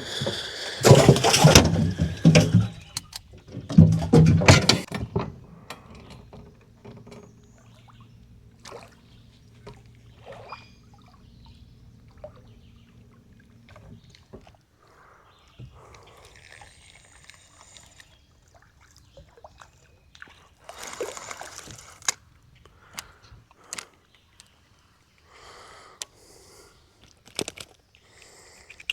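Water splashing and sloshing around a small fishing boat, with knocks and clicks from handling gear. There are two loud bursts in the first few seconds, a low steady hum that runs until about halfway through, and another burst of splashing past the two-thirds mark.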